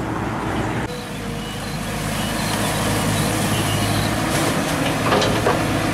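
Diesel engine of a Caterpillar 312B hydraulic excavator running steadily as it digs mud from a flooded ditch bank, with a few short knocks about five seconds in.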